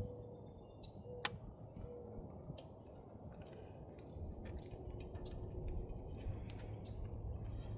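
Small scattered clicks and ticks of hands working a plastic 4-pin connector and its wires, with one sharper click about a second in, over a low steady hum.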